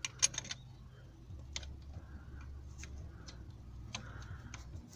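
A few light metallic clicks of a spanner being fitted onto a gearbox mount bolt, with a low hum underneath.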